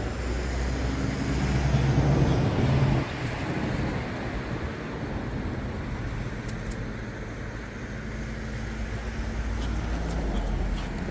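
A motor vehicle passing close by, loudest about two to three seconds in, then a steady rumble of road traffic.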